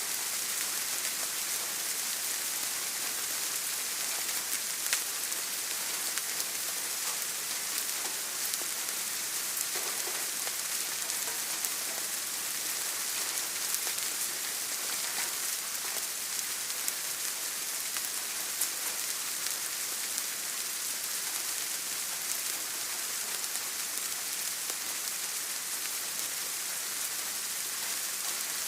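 Steady rain falling: a dense, even hiss with the odd louder drop ticking through it.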